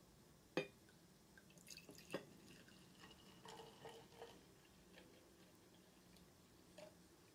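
Sake poured from a glass bottle into a small porcelain sake flask (tokkuri): a faint trickle and gurgle of filling, with a couple of sharp glass-on-porcelain clinks, one near the start and another about two seconds in.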